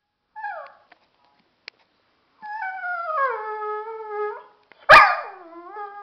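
Dogo Argentino vocalizing: a short cry falling in pitch, then a long drawn-out cry that slides down in pitch. About five seconds in comes a single loud, sharp bark, followed by another long, held cry.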